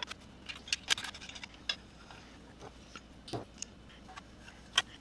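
Scattered small metallic clicks and taps of hand assembly: screws and a hex key handled against the aluminium extrusion frame of an Ender 3 Pro 3D printer. The sharpest click comes near the end.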